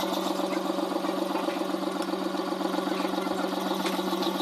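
Metal lathe running steadily: a constant motor hum with a fast, even rhythmic whirr from the drive.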